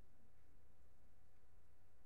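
Faint steady low hum with light hiss: background room tone or recording noise floor, with no distinct event.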